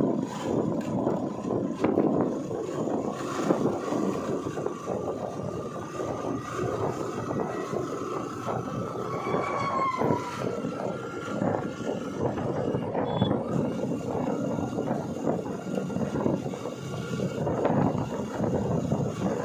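Steady traffic noise while driving close behind a truck: engine and tyre noise with wind on the microphone, and a brief high chirp about ten seconds in.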